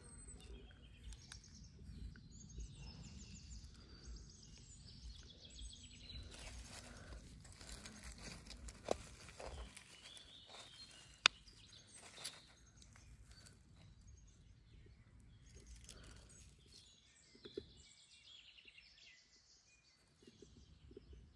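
Birds chirping faintly in outdoor ambience, with a low rumble through roughly the first half. A couple of sharp clicks come about nine and eleven seconds in.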